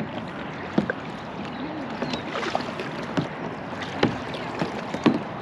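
Kayaks being paddled through calm water: paddle blades dipping and splashing, with a few sharp knocks scattered through.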